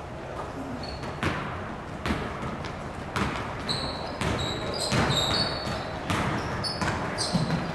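A basketball being dribbled on a gym floor, a string of bounces about one to two a second. From about halfway through, sneakers squeak in short high chirps as players cut on the court.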